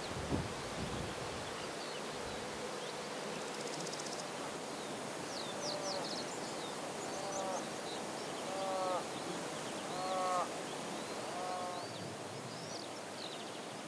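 Summer coastal-meadow ambience: steady insect buzzing, with small birds chirping. From about six seconds in, a short call repeats five times, about every second and a half.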